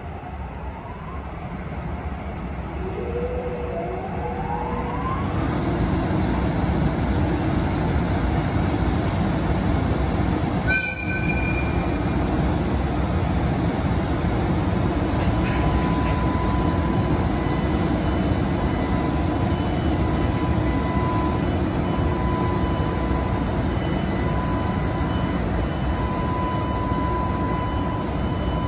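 JR Freight EH500 electric locomotive's running sound swelling to a loud steady whirring roar. Rising whines in the first few seconds, a short horn toot about a third of the way in, then a steady high whine as it starts to draw the container train away.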